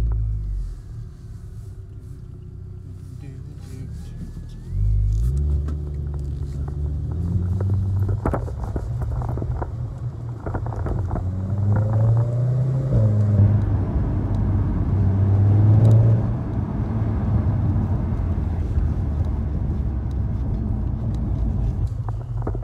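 Volkswagen Golf R with a resonator-deleted exhaust, heard from inside the cabin while driving. About five seconds in the engine note comes up and climbs as the car pulls, rising and falling in pitch. After a peak around sixteen seconds it settles to a steadier run.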